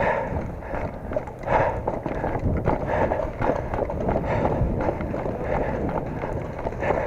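Footsteps of a person running or moving quickly over rough ground, a fast, uneven run of footfalls with gear jostling.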